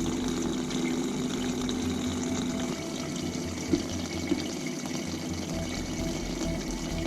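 Aquarium pump running inside a plastic storage box of isopropyl alcohol, keeping the liquid moving with a steady hum. Two short clicks come a little over halfway through.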